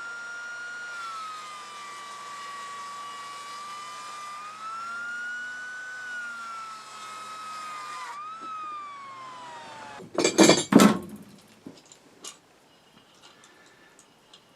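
Electric power tool motor whining. Its pitch sags and recovers as if under load, then winds down after about eight seconds. About ten seconds in there is a loud, short clatter, followed by a few faint clicks.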